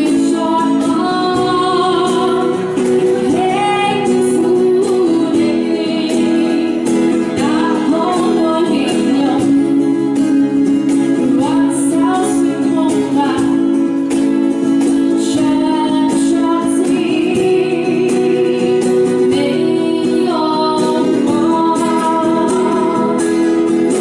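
A woman singing a song live to her own acoustic guitar, with a hand-played cajon keeping the beat.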